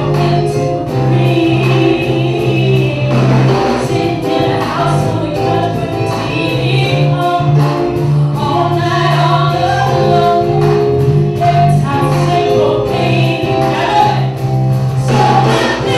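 Live band music: a woman singing into a microphone over keyboards and electric guitar, with held low bass notes underneath.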